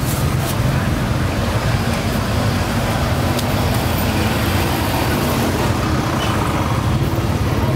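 Steady street traffic noise, a continuous low rumble and hiss of passing vehicles with no distinct events.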